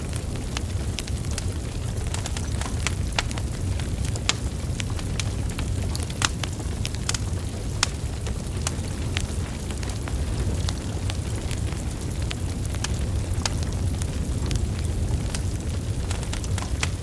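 Burning logs crackling, with many irregular sharp pops and snaps over a steady low rumble of the flames.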